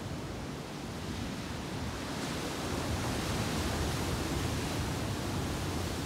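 Ocean surf breaking and washing over rock ledges: a steady rush of water noise that swells about two seconds in.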